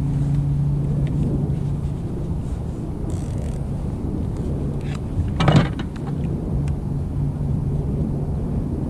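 Steady low hum of a motor, with a short loud clatter about five and a half seconds in.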